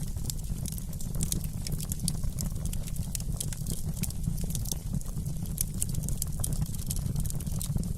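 Wood fire crackling: many small, sharp pops and snaps over a steady low rumble.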